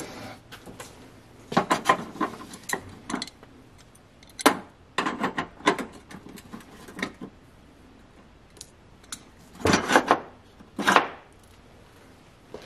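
Hard objects being handled and knocked together: irregular clusters of clicks and clacks in several bursts, the loudest near the middle and about ten seconds in.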